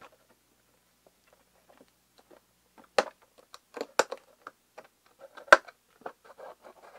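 Cardboard box and clear plastic packaging being handled and pried at: scattered light clicks and crinkles, with sharp taps about three, four and five and a half seconds in. The packaging holds a small model locomotive firmly in place.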